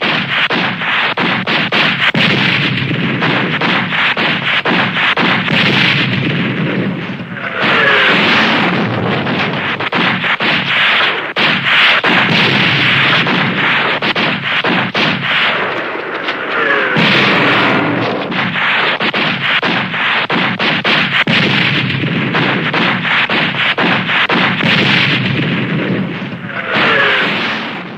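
Pistol gunshot sound effect: a dense, almost unbroken barrage of overlapping shots with short gliding whines mixed in. It comes in stretches of about nine seconds with a brief dip between them, and fades out near the end.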